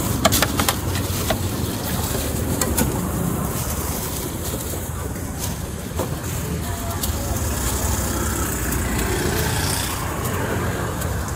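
Steady street ambience dominated by a low traffic rumble, with a few sharp clicks in the first few seconds and one more about halfway through.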